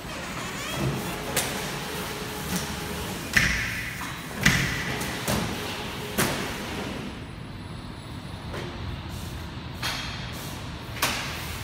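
A handful of irregular footsteps and thuds on a washable contamination-control floor mat, some sharp, over a steady background rush.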